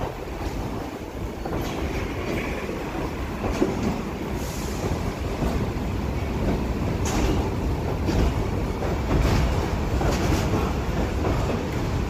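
New York City subway train pulling out of a station: a steady rumble with irregular wheel clacks over the rail joints, growing slowly louder as it gathers speed.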